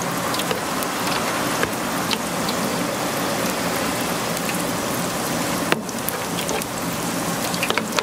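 Steady hiss and crackle of hot oil frying in a deep fryer, sprinkled with small pops, with one sharp click about six seconds in.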